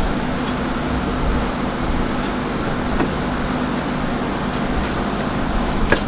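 Steady mechanical hum of a shop fan or ventilation unit, with a couple of light knocks about three seconds in and near the end as the foam bumper impact absorber is handled.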